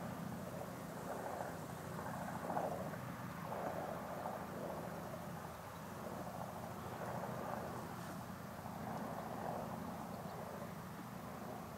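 Junkers Ju 52/3m trimotor in flight: a faint, steady low drone of its three radial engines and propellers, with a wavering rushing noise over it that swells and fades.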